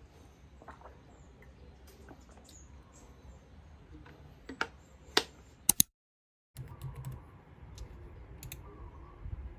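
Scattered light clicks and taps, with three sharper clicks close together about five seconds in, then a brief total dropout where the audio is cut.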